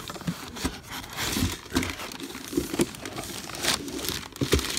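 Cardboard packing and a thin plastic bag crinkling, rustling and scraping as a soundbar is pulled out of its box, in irregular crackles.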